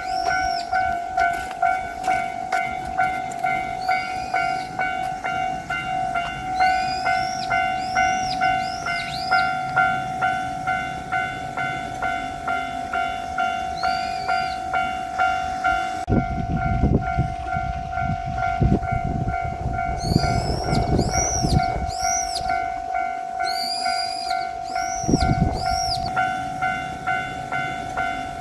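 Japanese railway level-crossing bell ringing with an even, repeating ding, while a diesel train on the Dosan Line passes over the crossing about halfway through with a low rumble and wheel knocks on the rail joints.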